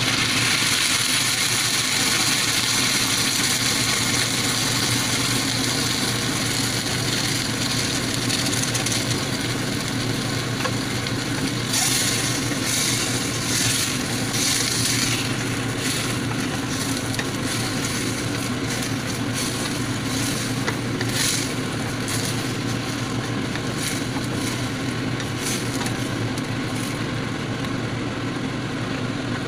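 Steady sizzling hiss from a stainless steel pot of chicken, potatoes and carrots cooking on the stove. From about halfway in, a wooden spatula stirs the pot, with repeated scrapes and knocks against the metal.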